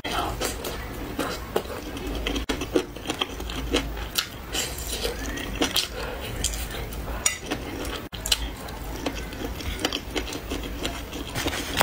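Close-miked eating sounds: biting food off a bamboo skewer and chewing, a dense run of short wet clicks and smacks.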